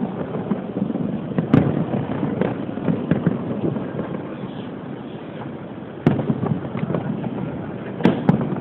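Fireworks display heard from a distance: sharp bangs of shells bursting, about one and a half seconds in, about six seconds in and twice in quick succession near the end, with smaller pops between them over a steady background rumble.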